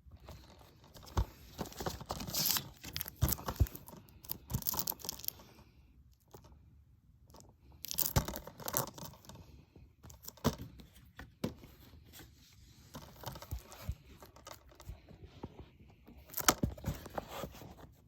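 Packaging being torn open and crinkled by hand, in irregular bursts of rustling and crackling with short pauses between.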